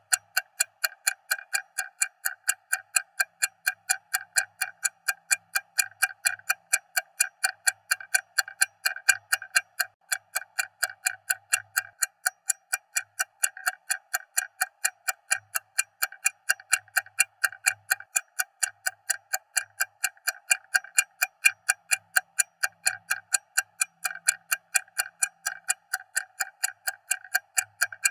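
Stopwatch ticking loudly: rapid, evenly spaced sharp ticks.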